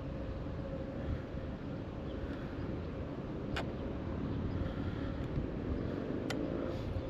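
Steady low rumble with a faint, steady hum. Two sharp clicks come about three seconds apart, the first about three and a half seconds in.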